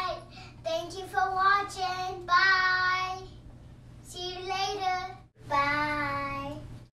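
A young girl singing a few short phrases, holding some notes long.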